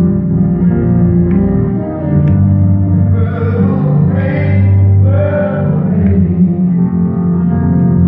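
Live music of a slow song: sustained low instrumental chords, with singing coming in about three seconds in.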